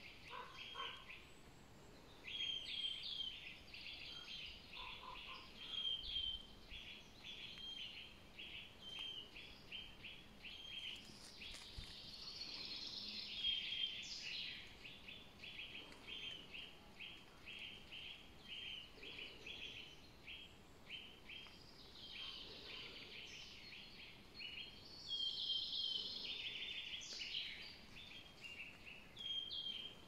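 Woodland songbirds singing: one bird repeats a short note about twice a second throughout, while others break in with fuller song phrases.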